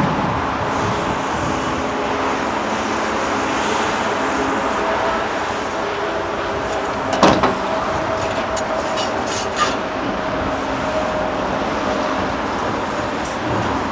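Large Caterpillar Next Generation hydraulic excavator's diesel engine running steadily under load while its bucket works broken rock. There is a sharp clank of rock on steel about seven seconds in and a smaller knock a couple of seconds later.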